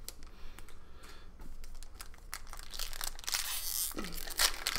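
Foil trading-card pack wrappers crinkling and being torn open by hand. The tearing gets louder about three seconds in and again near the end.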